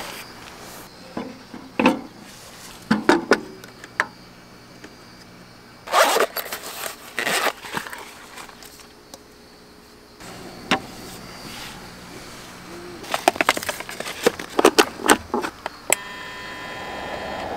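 Rustling, clicks and knocks of camping gear being handled and set down in the tent. Near the end a small electric fan heater is switched on with its touch button, and a steady hum begins.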